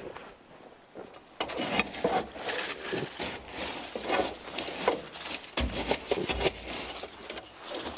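Burning wood and coals in an outdoor wood boiler's firebox being broken apart and stirred: scraping and clattering that starts about a second and a half in, with a heavier low knock around six seconds in.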